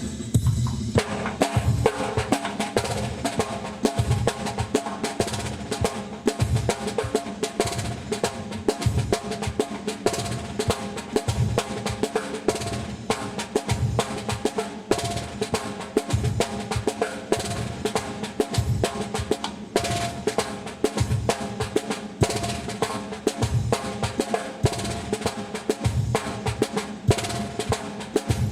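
Caixa (Brazilian snare drum) playing the marcha rancho groove in dense sharp strokes, starting about a second in, over a steady surdo bass-drum pulse and a backing loop.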